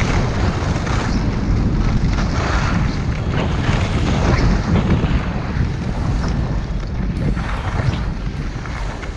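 Wind buffeting the microphone: a loud, gusty rush with a heavy low rumble that eases a little near the end.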